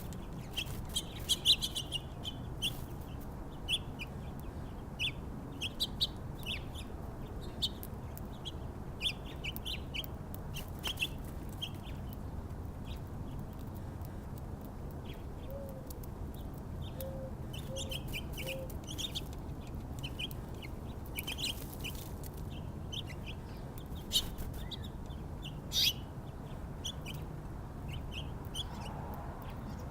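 Small songbirds at a feeder chirping in short, scattered notes, over a steady low background hum.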